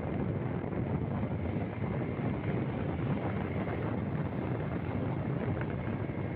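Steady wind rushing over the microphone, with the low rumble of a moving vehicle on the road beneath it.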